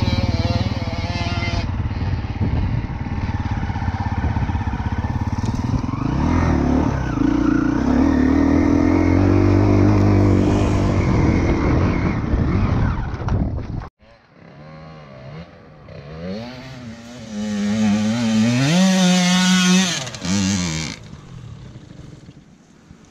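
KTM Freeride 350's single-cylinder four-stroke engine heard on board, revving up and down over rough ground. After a sudden break about fourteen seconds in, a dirt bike is heard from further off climbing a steep hill, its revs rising and falling several times, loudest near the end, then cutting off.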